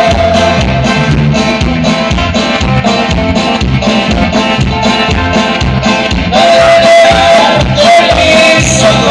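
Live band music from guitars and percussion with a steady beat, heard through the stage sound system. The music gets louder about six and a half seconds in.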